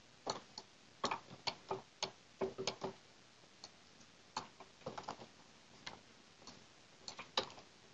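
Quiet, irregular clicking of a computer mouse and keyboard keys, single clicks and quick runs of several, as joints are selected and moved in the 3D software.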